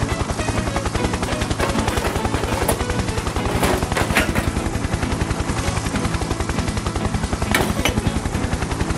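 Rapid, steady low thudding, about a dozen beats a second, like a mechanical sound effect, with a few sharp cracks near the middle and one near the end.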